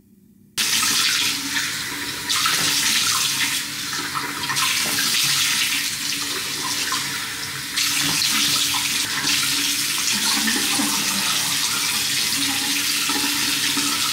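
Bathroom sink tap running in a steady stream, starting suddenly about half a second in, with hands cupping and splashing the water so that it swells and dips now and then.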